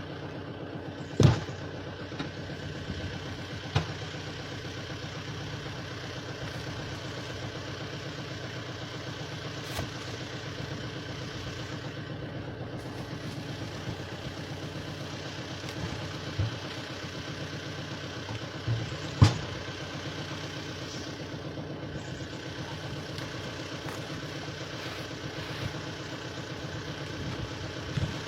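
An engine running steadily, with a few sharp knocks over it, the loudest a little past the middle.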